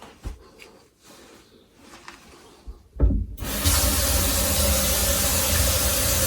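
Laundry sink faucet turned on about three seconds in, water then running steadily into the sink and down the freshly unclogged, reassembled drain as it is tested for leaks and flow. A few faint handling knocks come before it.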